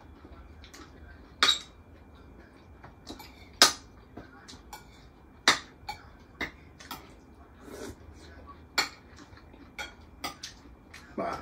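Metal cutlery clinking and scraping on dinner plates as people eat: about a dozen sharp, irregular clinks a second or so apart, the loudest a couple of seconds in.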